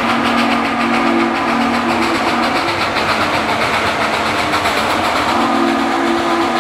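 2-8-0 steam locomotive No. 734 working hard under load, its exhaust a steady heavy roar. The steam whistle sounds over it in long blasts: one long blast, a short one about four seconds in, then another long one starting near the end.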